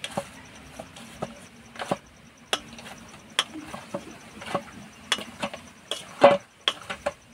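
Dough being kneaded by hand in a stainless steel bowl: irregular knocks and clicks as the dough is pressed and the metal bowl shifts, the loudest about six seconds in.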